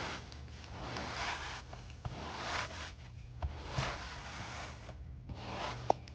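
Lilly Brush pet hair tool scraped across fabric in several rasping strokes, about one a second, pulling up embedded dog hair, with a sharp click near the end.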